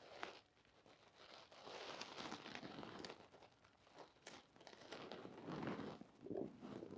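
Faint rustling and crinkling of a paper adhesive drilling template as it is slid into position and pressed flat against a vented soffit panel.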